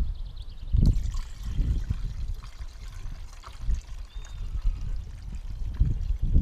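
Water being poured into a car's cooling system through the coolant tank filler, a steady pouring trickle. A few low thuds are heard near the start and again near the end.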